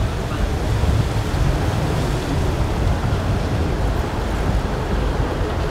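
Quadruple Mercury 350 outboard motors on a center-console boat running at low speed as it passes, a steady low rumble mixed with the wash of water at the stern and wind on the microphone.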